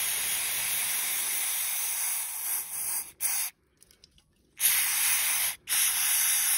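Aerosol cleaner hissing out of a spray can in bursts: one long spray of about three seconds, a short puff, a pause of about a second, then two more sprays with a brief break between them.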